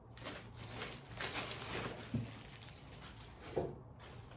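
Plastic shopping bag rustling and crinkling as groceries are lifted out of it, with a couple of light knocks as items are set down.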